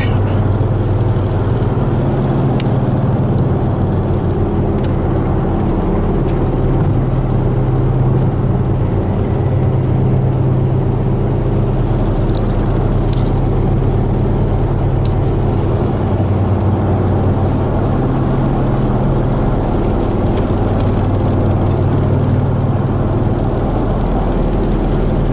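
Steady low drone of a car driving, engine and road noise heard from inside the cabin, with a few faint clicks.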